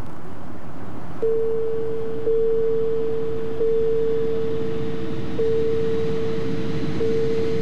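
Steady airliner-cabin drone under a pure electronic cabin-sign tone. The tone starts about a second in and is struck afresh four more times as the overhead sign icons light up one after another.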